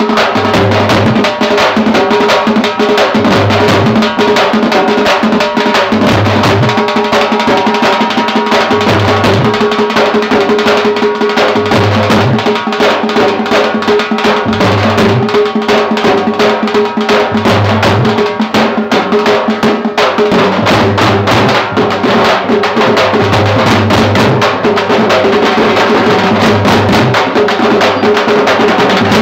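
Loud live drum-band music: dense, rapid drumming with a deep bass beat about every one and a half to two seconds, over a steady held note.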